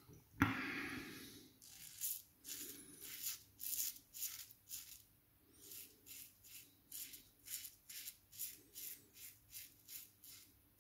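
Open-comb safety razor (Goodfellas' Smile OC with an Astra Platinum blade) scraping through lathered stubble on the jaw and neck in short strokes, about two a second: the crackle of the blade cutting the hairs.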